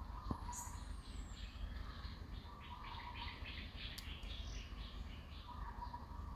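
Birds chirping: a high falling whistle, then a quick run of short chirps, over a steady low rumble.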